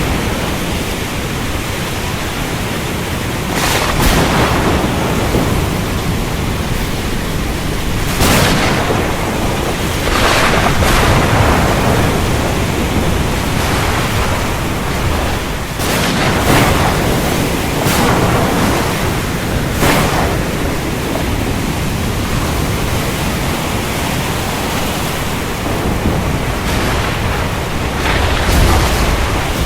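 Heavy rain with a steady hiss, broken every few seconds by short, sharp thunder cracks, about seven in all.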